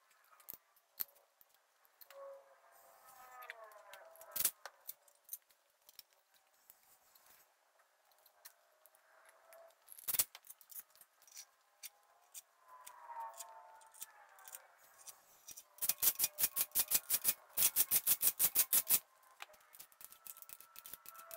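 Hand tools at work on engine cylinder heads: scattered clicks and metal taps with a couple of sharp knocks, then a ratchet wrench clicking rapidly, about ten clicks a second, for some three seconds near the end.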